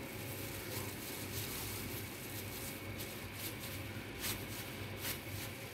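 Faint rustling and clicks of a plastic-gloved hand pressing and patting mashed potato onto a wooden cutting board, over a low steady hum.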